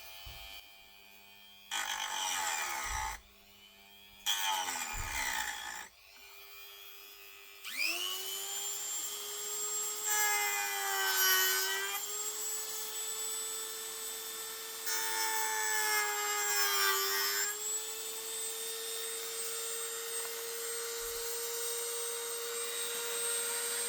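Small handheld power tool cutting into a plastic brake light housing: two short bursts, then the motor spins up and runs with a steady whine, its pitch sagging slightly with a grinding rasp twice as the cutter bites into the plastic.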